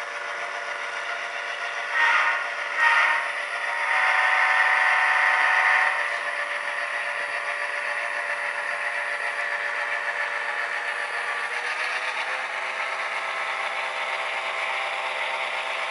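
Soundtraxx Tsunami sound decoder in a Proto 2000 HO-scale EMD SD9 model locomotive playing steady diesel engine sound through its newly fitted speaker as the model runs. Two short louder sounds come about two and three seconds in, then a louder chord of steady tones lasting about two seconds.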